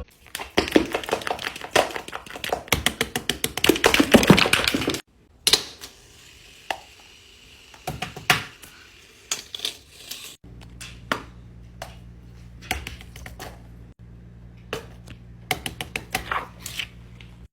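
Plastic fidget toys being clicked and tapped: a dense, rapid run of clicks for about five seconds, then sparser single clicks and taps, which from about halfway on sit over a steady low hum.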